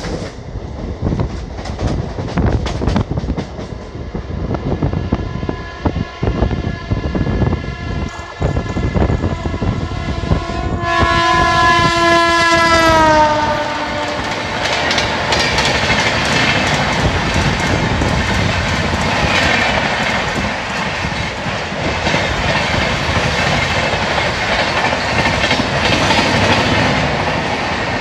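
Rapid clickety-clack of train wheels over rail joints, then about eleven seconds in an electric locomotive's horn blows for a couple of seconds and drops in pitch as the overtaking WAP-7 passes. After it comes the steady rush and rumble of the Jan Shatabdi Express coaches going by alongside at speed.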